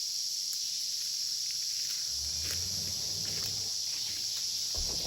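Insects in the forest keep up a steady, high-pitched drone; no chainsaw is running.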